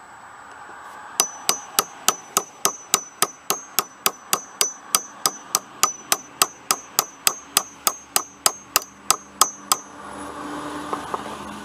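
Claw hammer beating on the old starter motor in a steady run of about thirty sharp metallic blows, roughly three a second, each with a short ring, to knock loose the stuck starter drive gear.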